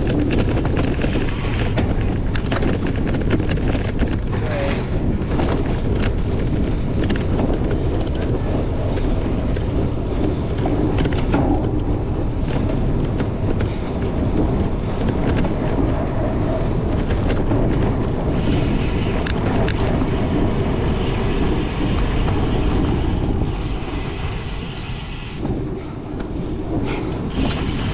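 Wind buffeting the microphone while a cyclocross bike is raced, over a steady low rumble with frequent rattles and knocks from the bike on rough ground.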